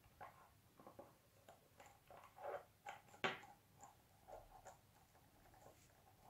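Faint, irregular rustling and light clicks of nylon paracord being handled and drawn through a knot, with one sharper click a little after three seconds in.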